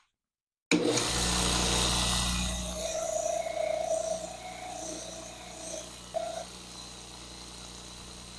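Electric power tool switching on abruptly about a second in and running with a steady motor hum, loudest for the first couple of seconds and then settling, as a tempered steel knife blade is cleaned up on it.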